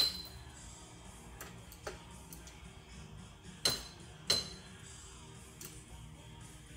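Sharp metallic clicks and clinks of a small hand tool working on a 4L80E transmission's valve body as its check balls are picked out: a handful of separate ticks, the loudest two close together near the middle. Faint background music underneath.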